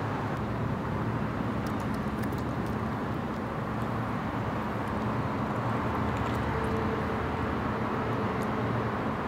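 Steady low background rumble, like road traffic, with a few faint light clicks about two seconds in.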